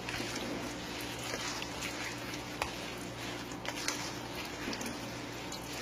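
Wooden spoon stirring a thick, wet suet batter in a stainless steel bowl: a soft, steady stirring noise with a few light ticks of the spoon against the bowl.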